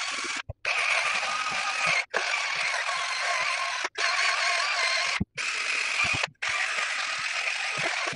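12 V Kimo cordless drill spinning a bristle brush attachment against a bathtub: a steady motor whir with the brush scrubbing, in runs of one to two seconds separated by abrupt silences.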